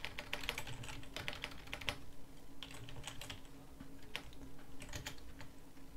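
Typing on a computer keyboard: a run of quick, uneven key clicks with short gaps between words.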